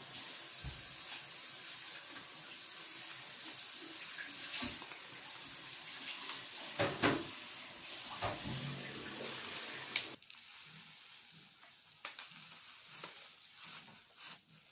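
Kitchen tap running steadily into the sink, then shut off abruptly about ten seconds in. A couple of sharp knocks, like dishes clattering, come shortly before it stops.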